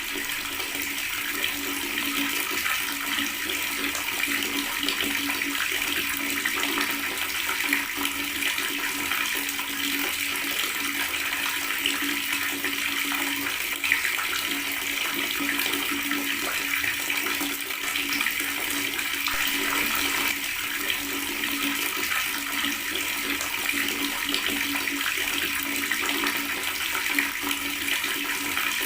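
Water running steadily from a tap, an unbroken gurgling splash.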